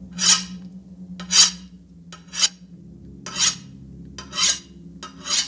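A butcher's cleaver drawn along a sharpening steel in slow, even strokes, about one scrape a second, six in all. A steady low hum runs underneath.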